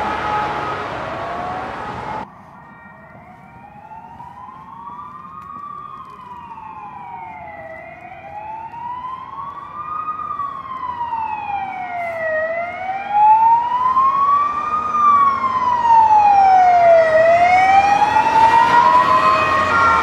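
Ambulance siren on a slow wail, its pitch rising and falling about every five seconds and growing steadily louder. About two seconds in, a louder, noisier siren passage cuts off abruptly and gives way to the quieter wail.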